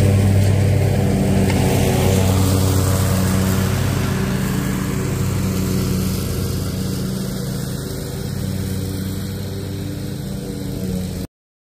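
Zero-turn riding mower's engine running steadily while the mower drives away, slowly fading. The sound cuts off abruptly near the end.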